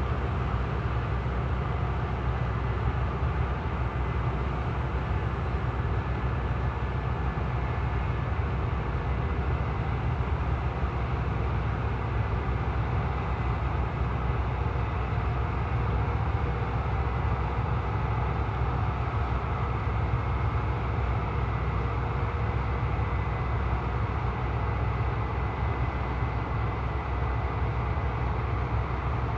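Large diesel harvest machinery running steadily: a deep, unbroken engine hum with faint steady whines above it.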